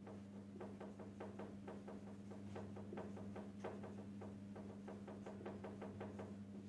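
Marker pen writing on a whiteboard: quick, irregular taps and short strokes of the felt tip against the board, faint, over a steady low hum.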